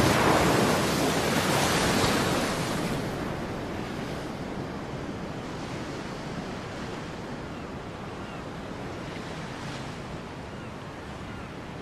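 Sea waves breaking on rocks: a loud crash of surf in the first few seconds that washes away into a steady, lower surf wash.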